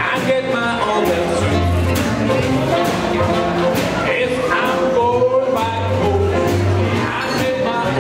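Swing jazz band playing: horn lines over a bass and drums keeping a steady beat.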